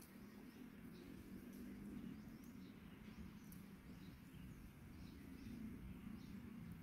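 Near silence: faint outdoor ambience with a low steady hum and scattered faint, short, high bird chirps.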